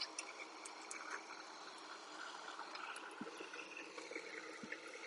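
Small gas canister backpacking stove burning under a metal pot, a faint steady hiss with a few light ticks.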